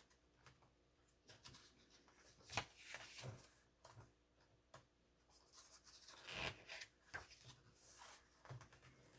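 Faint handling of paper: a few soft rustles and taps as album photo book pages are turned, the loudest about two and a half and six and a half seconds in.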